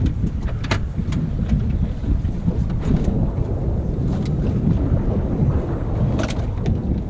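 Steady low rumble of wind and water noise aboard a fishing boat, broken by a few sharp knocks.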